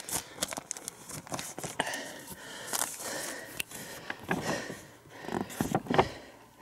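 A hiker's footsteps and gear rustling on a grassy mountain slope: irregular soft scuffs, crackles and rustles, with a few louder rustles in the last couple of seconds.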